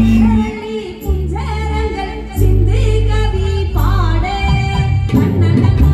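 A woman singing into a microphone with a live band of keyboard, bass and drums, all amplified through PA speakers.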